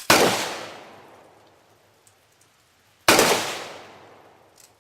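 Two loud bangs about three seconds apart, each fading away over a second or so: rifle fire at exploding tannerite targets.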